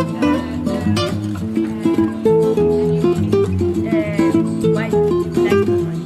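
Background music played on acoustic guitar, a run of plucked notes over low sustained bass notes.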